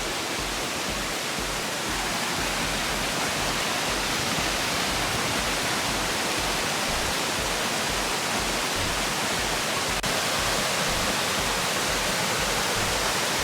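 Waterfall water pouring and splashing in a steady, full rush of noise.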